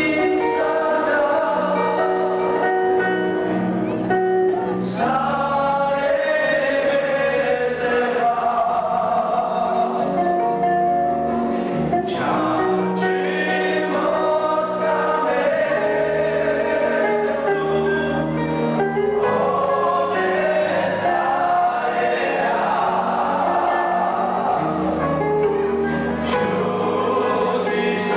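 Choir singing a worship song over instrumental accompaniment with long held bass notes.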